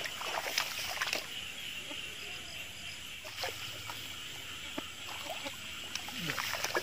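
Wading and sweeping an electrofishing pole through a wet rice paddy at night: scattered splashes, sloshes and grass rustles, over a steady high-pitched chorus of night creatures.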